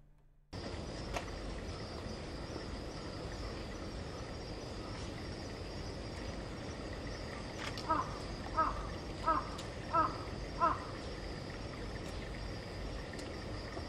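Outdoor ambience with a steady high drone of insects. About eight seconds in, a bird gives five short calls in quick, even succession.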